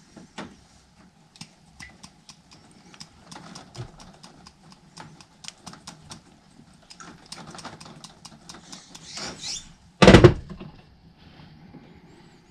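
Small clicks and rattles of plastic PER pipe and a slide-on fitting being handled and worked together, with one loud knock about ten seconds in.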